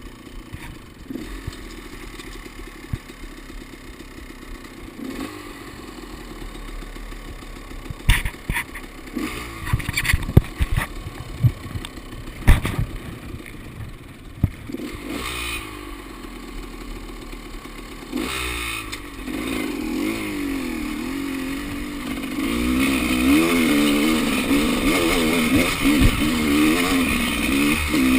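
Enduro motorcycle engine running at low revs, with sharp knocks and clatter about a third of the way in, then revving up and down, louder, through the second half.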